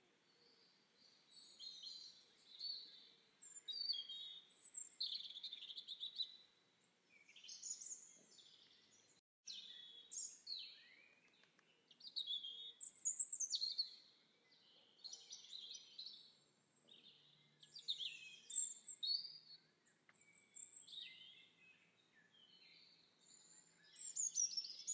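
Songbirds singing: quick high chirps and warbled phrases with short pauses between them, and the sound cuts out for an instant about nine seconds in.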